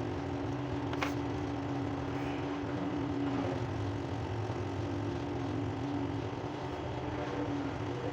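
A steady motor hum with a held mid-pitched tone, and a single sharp click about a second in.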